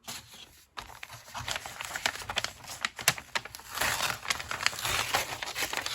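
Plastic packaging and paper crinkling and rustling in the hands as a papercraft kit is unpacked, with many small irregular crackles that get busier about two thirds of the way through.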